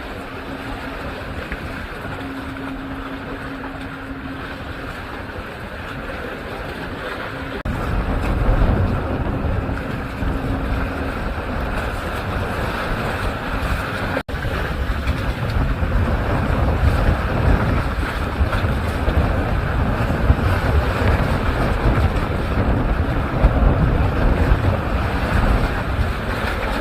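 Wind gusting on the microphone over the wash of sea waves at a harbour breakwater, with a faint steady hum in the first part; the wind rumble gets stronger after about eight seconds.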